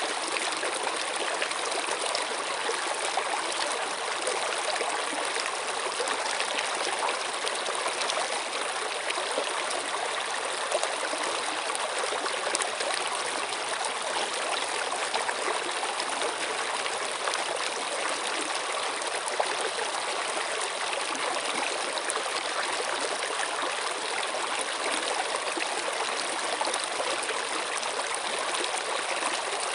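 Running water flowing steadily, with an even trickling and splashing that does not change.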